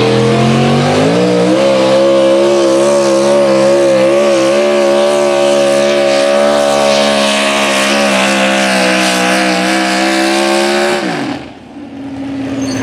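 Supercharged engine of a modified four-wheel-drive pulling truck at full throttle hauling a weight-transfer sled. The engine climbs in pitch about a second in and holds high and wavering through the pull, then falls and drops away sharply near the end as the truck comes to a stop.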